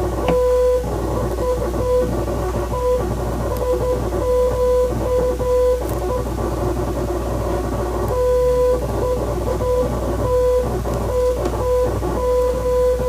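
Morse code beeps: one steady tone keyed on and off in short dots and longer dashes, over background guitar music.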